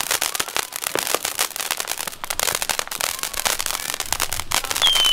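Ground fountain firework spraying sparks with a dense, rapid crackling. Near the end a high whistle starts up, sliding slowly down in pitch.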